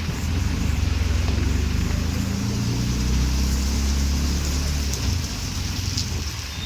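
Heavy rain hissing steadily, with a motor vehicle passing on the wet road. Its low engine rumble swells early and eases off about five seconds in.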